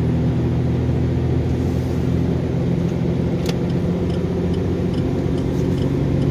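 KAMAZ truck's diesel engine pulling steadily under load up a steep grade, heard from inside the cab, with one short click about three and a half seconds in.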